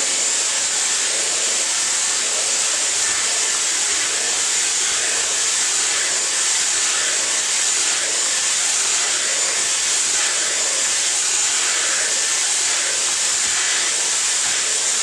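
Dyson hair dryer blowing at its highest setting, a steady rush of air with a high whine, held unchanged throughout as it is drawn through the hair.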